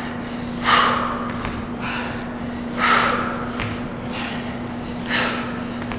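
Heavy exertion breaths, forceful exhales from people doing reverse lunges with knee drives, three of them about two seconds apart, over a steady low hum.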